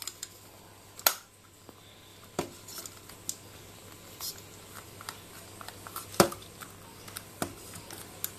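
Shiny plastic wrapper being handled and pulled open by small hands: scattered crinkles and rustles, with a sharp click about a second in and a louder one about six seconds in.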